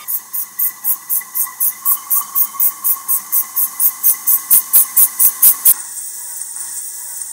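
Steam locomotive chuffing in an even beat of about four exhaust puffs a second, growing louder, then cutting off about six seconds in and leaving a steady hiss.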